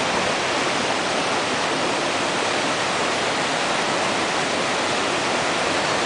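Small waterfall pouring into a rock pool, with water running over the stones below: a steady, even rush of water.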